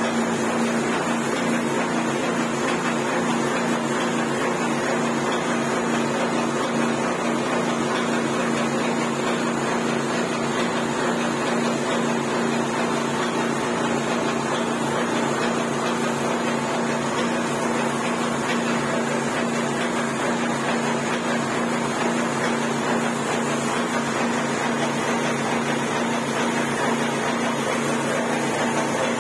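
Putty spray machine running with a steady hum under a constant hiss as its gun sprays wall putty.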